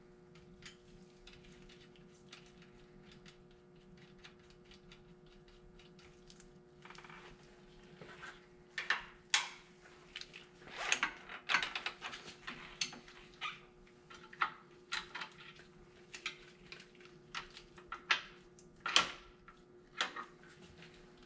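Hand tools and steel parts clinking and knocking as a wrench is worked on a tractor's rear three-point hitch. Faint light ticking for the first several seconds, then a run of irregular sharp metallic clinks.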